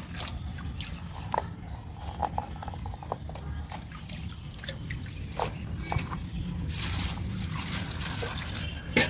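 Water sloshing and dripping as hands swish fresh flat beans around in a metal bucket to wash them. Near the end water is poured from the bucket over the beans in a wicker basket.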